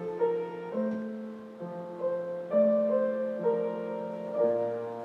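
Piano playing slow, held chords, a new chord struck about every second.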